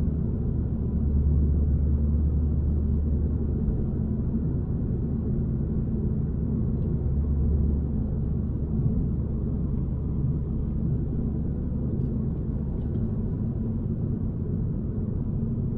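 2021 MINI Cooper S (F56) with its B48 2.0-litre turbocharged four-cylinder, heard from inside the cabin while driving at a steady pace: an even, low drone of engine and road noise.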